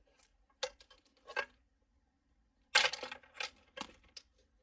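Wiring-harness plugs and leads clicking and clattering as they are handled, a handful of short sharp clacks with the loudest cluster about three seconds in.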